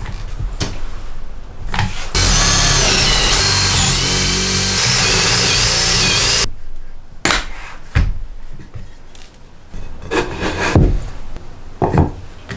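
Makita cordless drill boring into softwood through a wooden guide block: the motor whines for about four seconds, its pitch wavering under load, then cuts off suddenly. A few sharp knocks of wood being handled follow.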